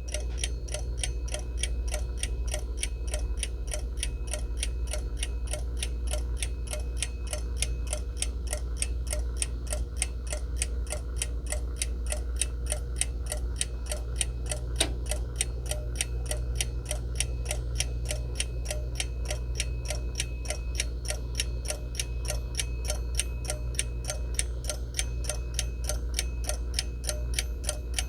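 Seiko Corona hand-wound mechanical alarm clock ticking steadily, about five even ticks a second.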